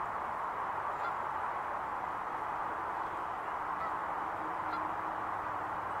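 Canada geese giving a few faint honks over a steady hiss.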